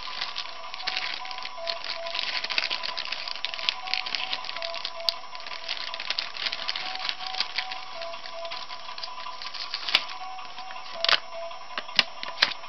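Thin plastic toy bag crinkling and crackling as it is handled and opened, with a few sharper snaps near the end, over a background music track with a simple repeating melody.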